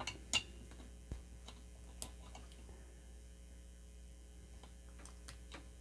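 Low, steady mains hum, with a few faint light clicks as a round multi-pin DIN power connector is handled.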